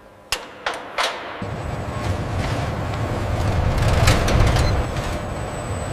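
Three sharp metallic knocks in the first second, then a steady low mechanical rumble that sets in about a second and a half in and carries on.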